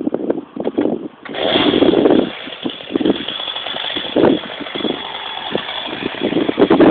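Chainsaw engine starting about a second in, then running with a steady high whine and short revs.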